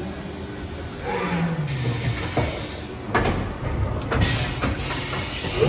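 Haas VF-2SS vertical machining center running: its motors whine up and down in pitch as they speed up and slow down, with a few sharp mechanical clunks.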